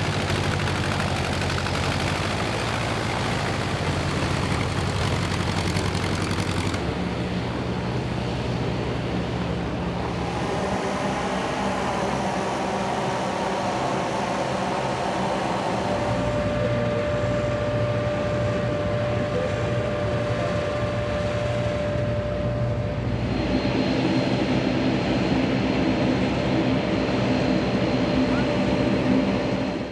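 Aircraft engines running at an airfield, in several cut-together shots whose sound changes abruptly about 7, 16 and 23 seconds in; a steady high tone sounds from about 16 to 23 seconds in.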